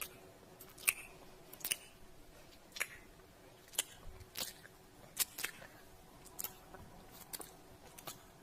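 Lip sounds: about a dozen short, wet kissing smacks made with the lips, coming at uneven intervals, often under a second apart.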